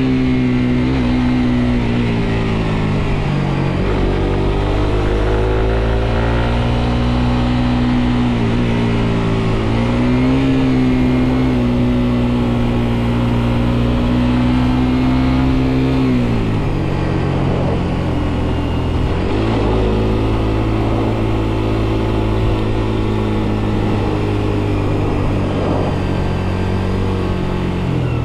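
Suzuki GSX-R125's single-cylinder four-stroke engine running under way, its pitch falling as it slows about three seconds in, climbing back up, holding steady, then dropping again about sixteen seconds in before climbing and holding steady once more.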